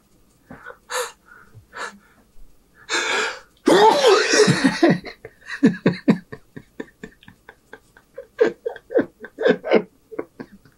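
A man takes a sharp gasping breath in and sneezes loudly about three to four seconds in, then breaks into a run of short, choppy laughs.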